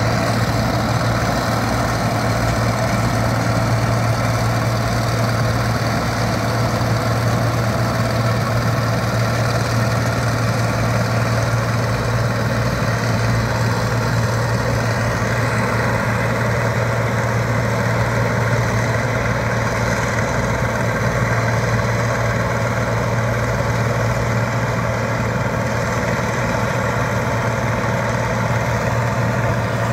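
A large farm engine running steadily at one constant speed: a low, even drone that does not change in pitch or loudness.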